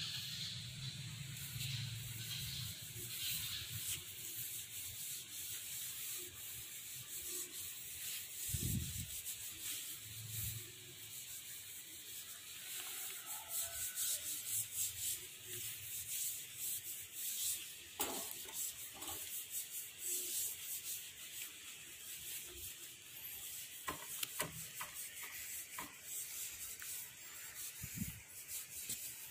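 A sock loaded with Autosol metal polish rubbed back and forth over the Benelli TNT 600's metal exhaust header pipes, making a hissing rubbing noise in irregular strokes with occasional louder scuffs.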